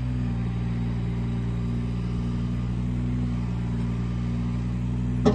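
Kubota KX018-4 mini excavator's three-cylinder diesel running steadily while the boom and dipper arm are worked, with one sharp clank near the end.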